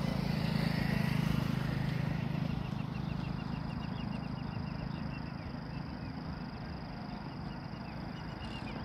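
Low rumble of an express passenger train running on the rails, fading slowly as the train moves away down the track. A bird chirps in a quick run of short high notes through the middle and again near the end.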